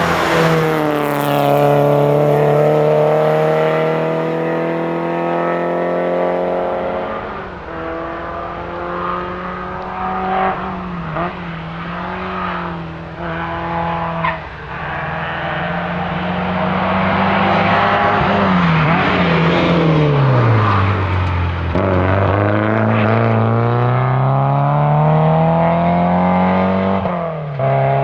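Porsche 944's four-cylinder engine being driven hard on a rally stage. The revs rise and fall through gear changes: a long fall in pitch, an uneven stretch with short throttle blips, then a steady climb cut off sharply by a gear change near the end.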